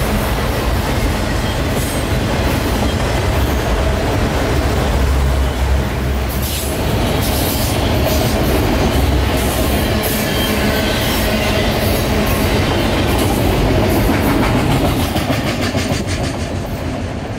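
Union Pacific freight train of autorack cars rolling past at speed, a steady rumble with wheel and rail-joint clatter, easing slightly near the end as the last cars go by.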